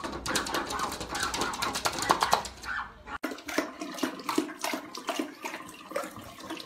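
A flurry of quick taps and scuffles with a voice, then, about three seconds in, a bathroom sink tap running while an English bulldog laps and slurps at the stream.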